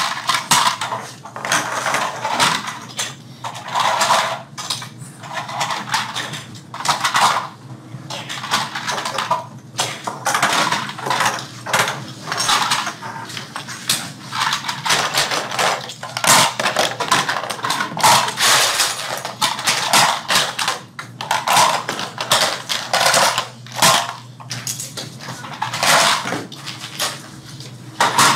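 Small hard toy-airplane parts clicking and clattering against each other and the work table as they are handled and fitted together, with dense, irregular knocks.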